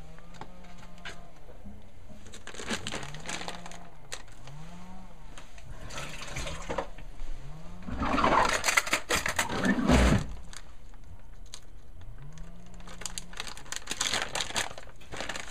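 A louder rushing noise for about two seconds midway, then a plastic bag of shredded cheese crinkling as it is handled near the end.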